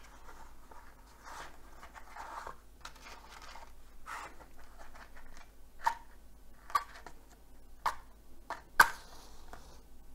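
Matches struck against a matchbox: soft scraping and rustling first, then four short sharp strikes about a second apart, the last and loudest, about nine seconds in, followed by a brief hiss as the match catches.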